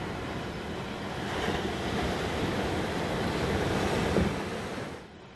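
Ocean waves breaking on a rocky shore: a steady rushing wash of surf that swells to a peak about four seconds in, then fades near the end.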